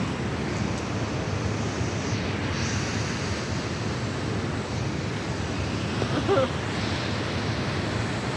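Steady rush of flowing creek water, an even, unbroken hiss.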